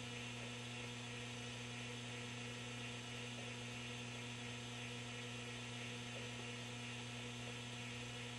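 Steady mains hum from a powered-up Sentinel 430 vintage tube television running through a variac: a low, even tone with a second, higher tone above it and faint hiss, unchanging throughout.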